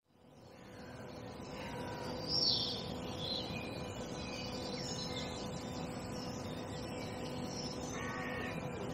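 Early-morning birdsong over a steady background hiss, fading in from silence. Scattered short bird calls, the clearest about two seconds in and another group near the end.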